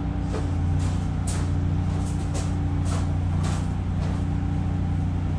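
Portable generator engine running steadily under a light load, with several brief light clicks and taps.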